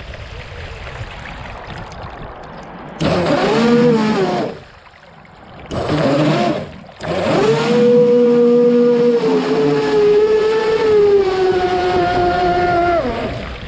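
Radio-controlled model boat's motor speeding up and slowing in throttle bursts, its pitch rising and falling: a short burst about 3 s in, a brief one around 6 s, then a long run from about 7 s that holds a steady pitch before easing off near the end.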